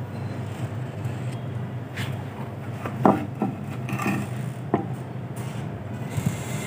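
Drawing a design onto a wooden block: light scratching of the marking tool on the wood, with a handful of sharp taps and knocks near the middle as the block and tool are handled. A steady low hum runs underneath.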